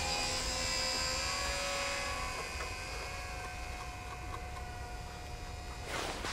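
Small RC model plane's electric motor and propeller, a steady thin whine of several tones that fades as the plane flies away. A brief rustle or knock comes just at the end.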